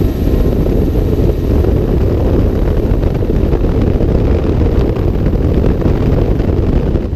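Helicopter in flight, a steady loud rotor and engine rumble with wind buffeting the microphone.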